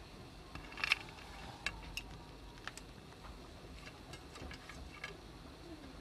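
Light, irregular clicks and taps of chopped nuts and raisins being sprinkled over fruit chaat in a glass bowl, with a louder cluster about a second in.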